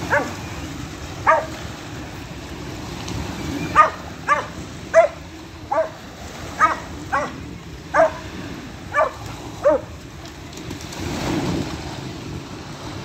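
A medium-sized tan dog barking in short single barks, about eleven of them over ten seconds, above the steady wash of small waves breaking on the shore.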